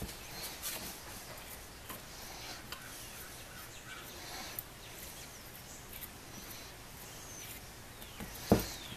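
Faint ticking and rubbing as a nut is turned by hand along the greased threaded rod of an SR Suntour XCT suspension fork, slowly because the grease makes it slip. There is one sharper knock near the end.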